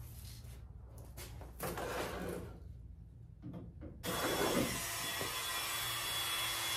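Rubbing and handling noises, then about four seconds in a corded Dremel-type rotary tool switches on abruptly and runs steadily with a high whine, used to take down hardened epoxy drips on the wing.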